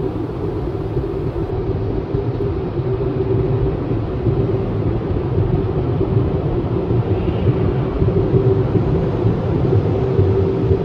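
Automatic car wash drying blower running steadily, heard from inside the car: a continuous rush of air with a constant hum.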